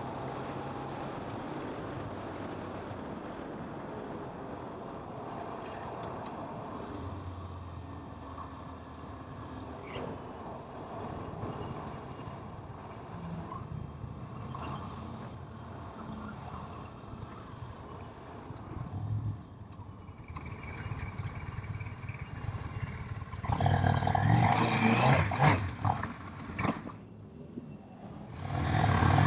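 Kawasaki motorcycle engine running through city traffic, a steady hum with low engine tones. About two-thirds of the way in, loud rushing wind noise on the camera's microphone takes over, eases briefly, and then comes back near the end.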